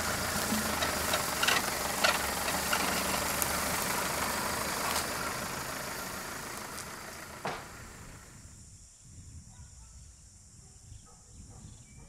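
An old four-wheel-drive truck's engine running, with scattered sharp clicks over it, the sound fading away over the first eight seconds or so.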